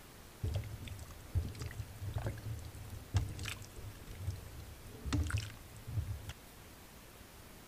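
Metal spoon scraping chunks of fish out of a ceramic bowl into a pot of chowder and stirring them in, with irregular clinks and scrapes against the bowl and pot and low knocks of handling. It stops about a second before the end.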